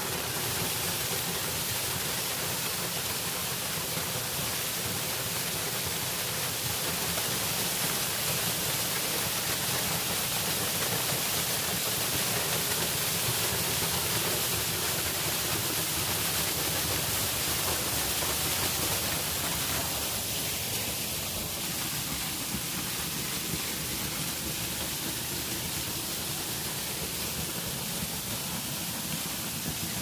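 Waterfall pouring down a rock face, heard close up: a steady hiss of falling, splashing water.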